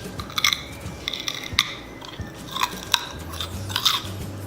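A person biting and chewing a raw carrot: a run of sharp, crisp crunches at irregular intervals.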